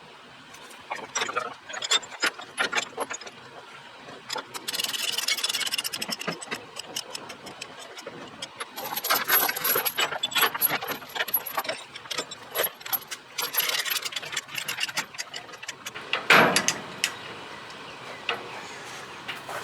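Half-inch load-securement chains clanking and rattling with many sharp clicks and knocks as a heavy load is chained down, with a louder, deeper knock about sixteen seconds in.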